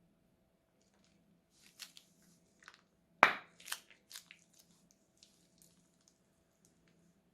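Crunchy slime being squished, giving a scattering of crackles and clicks, the loudest a sharp crunch about three seconds in, with smaller crackles trailing off after it.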